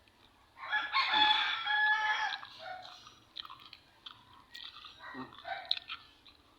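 A rooster crowing once, one long call of about two seconds starting about half a second in, followed by faint chewing and mouth clicks.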